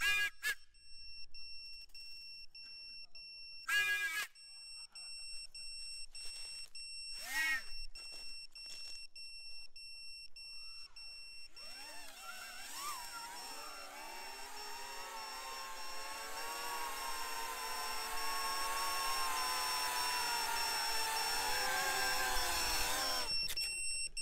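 A steady, high-pitched electronic beeper tone, an FPV quadcopter's buzzer, sounds throughout, with a few short chirps in the first half. From about halfway, drone motors whir with several shifting pitches, grow louder, and cut off abruptly near the end.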